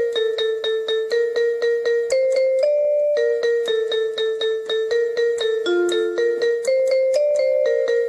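Background music: a keyboard melody of quickly repeated notes that step up and down in pitch.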